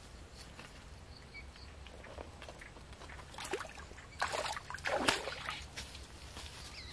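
Dry leaves and twigs rustling and crackling in a few short bursts, loudest about five seconds in.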